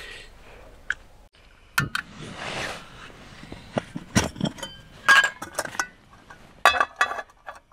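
Camping cookware clinking and knocking as it is handled, several sharp metallic clinks, each with a brief ring.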